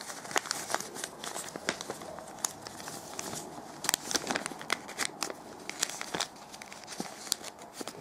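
Glossy coated paper (papel charol) crinkling and crackling in irregular quick clicks as hands fold, tuck and press the modules of an origami cube together.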